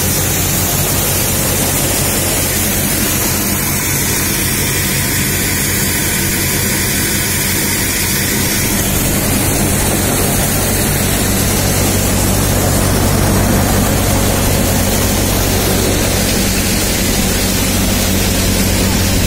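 MM Punni CS-model multi-crop thresher running steadily while threshing chickpeas: a constant loud mechanical drone with a low hum under a rushing hiss of grain and chaff.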